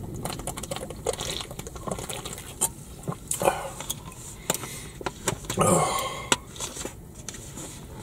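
A man drinking sparkling water from a plastic bottle: swallowing, with scattered small clicks and crackles from the bottle. There is a longer breath out about two-thirds of the way through.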